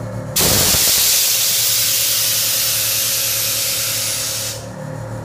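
Air ride suspension dumping air from its airbags: a loud, steady hiss comes in sharply about half a second in and stops after about four seconds as the car body drops onto its lowered stance.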